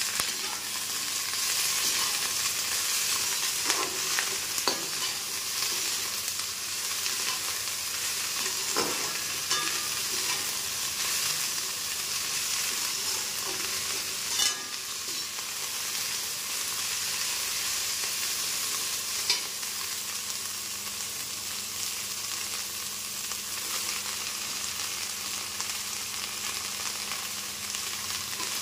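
Shredded cabbage and green chillies sizzling steadily as they stir-fry in a stainless steel kadhai. A slotted steel spatula scrapes through the pan and gives a few sharp knocks against it.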